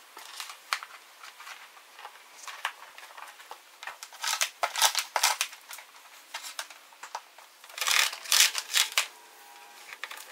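Plastic clicking and rustling as parking sensors and their cables are handled and pressed into holes in a plastic bumper cover, in bursts about four seconds and eight seconds in.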